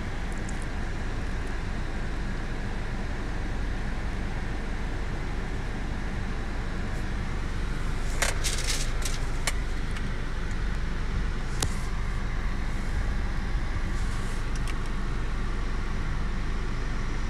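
Steady low rumble of an idling car, with a quick cluster of sharp clicks and knocks about eight to nine and a half seconds in and one more click a couple of seconds later.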